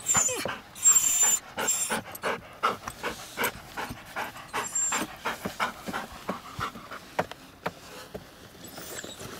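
A dog panting hard and close up, quick even breaths about three or four a second, loudest in the first couple of seconds.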